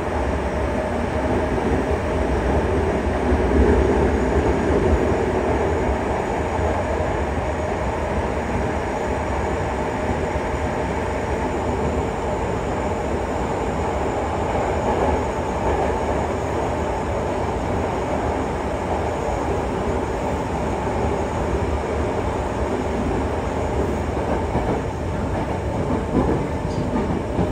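Steady running noise inside a Yokohama Municipal Subway 3000A-series car with Mitsubishi GTO-VVVF traction: a continuous rumble of wheels and running gear as the train travels through the subway tunnel.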